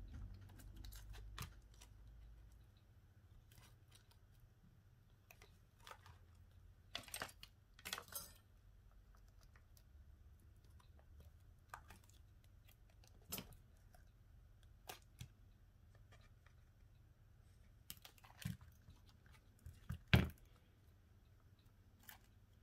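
Irregular small clicks, taps and short scrapes of hand tools and phone parts being handled during a smartphone screen replacement, the loudest near the end.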